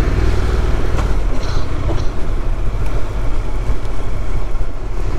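Honda NC750X parallel-twin motorcycle engine running at low revs while the bike rolls slowly along a city street, a steady low rumble.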